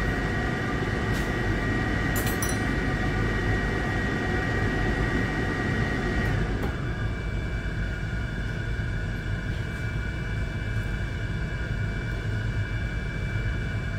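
Steady electric fan hum with a thin whine running through it. About six and a half seconds in the hum drops a little and the whine shifts to a slightly higher pitch. A couple of faint clicks come near the start.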